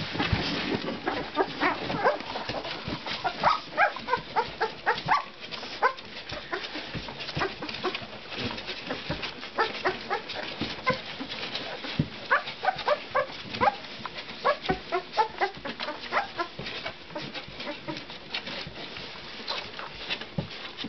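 Litter of 13-day-old Labrador puppies squeaking and whimpering while they nurse from their mother, many short high squeaks coming on and off throughout, with small clicking sounds of suckling.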